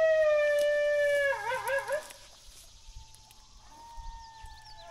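A long coyote howl, sliding slowly down in pitch, breaks into a rapid wavering warble about a second and a half in and stops. A fainter tone follows, and a new howl begins near the end.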